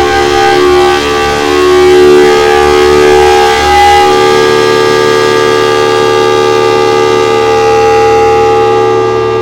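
Federal Signal Thunderbolt 1003 civil defense siren sounding a loud, steady wail. It is a chord of several held tones that wavers for the first few seconds, then settles.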